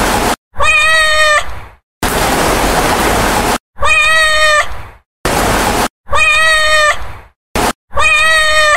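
A cat's meow, the same recorded meow played four times, each about a second long and cut off abruptly. Bursts of even hiss-like noise fall between the meows.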